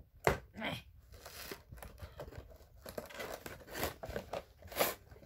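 Cardboard window box of a model car being opened by hand: irregular rustling and tearing of the packaging. There is a sharp rip just after the start and louder ones about four and five seconds in.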